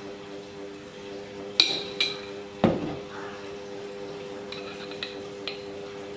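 Metal spoon clinking against kitchen bowls and containers while spices are measured out. Three sharp clinks come close together about a second and a half in, followed by a few lighter ticks, over a steady low hum.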